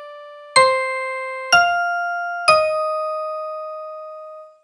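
MIDI-rendered keyboard notes played one at a time with a bell-like ring: three single notes struck about a second apart, each left to die away, the last ringing for about two seconds before cutting off near the end.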